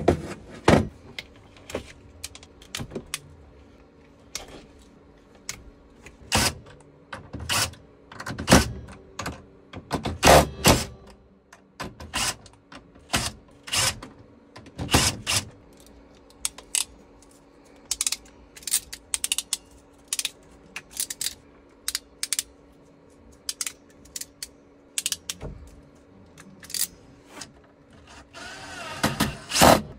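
Irregular sharp clicks and knocks, some in short clusters, from work with a cordless drill-driver: screws and a plastic control box being handled and fastened.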